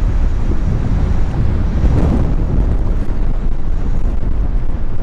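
Strong wind buffeting the microphone, a steady loud low rumble.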